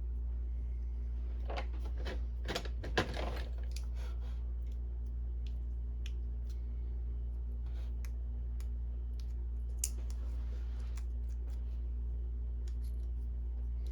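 Small handling clicks and a brief rustle, loudest about two to three seconds in, as an ink cartridge and its sticky label are worked by hand. A single sharp click comes near ten seconds, and a steady low hum runs underneath.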